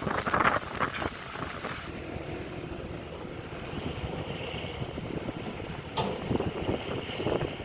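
Excavator engine running steadily, with wind on the microphone. Louder bursts come in the first second and a half, and there is a sharp click about six seconds in.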